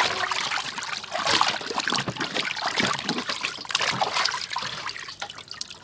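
Water splashing and sloshing in a large steel basin as several pairs of hands rub and rinse whole raw chickens, in irregular splashes that ease off toward the end.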